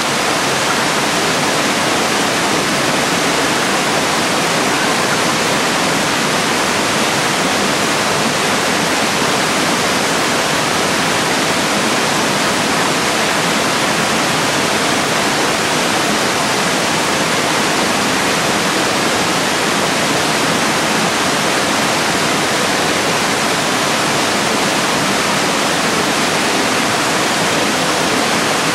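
Steady rush of a creek's water pouring over small cascades and rock ledges, an even hiss that does not change.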